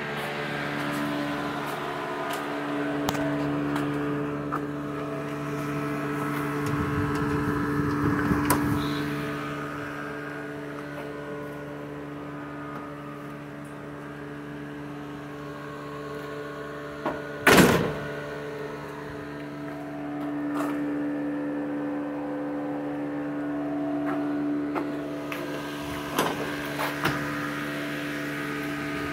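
Electric shop fan running with a steady motor hum. Over it, some handling noise, one sharp bang a little past halfway, and a few lighter clicks near the end.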